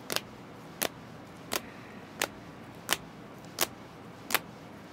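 Sharp plastic clicks, about one every 0.7 seconds and seven in all: rigid plastic top-loader card holders knocking together as a stack of trading cards is flipped through one card at a time.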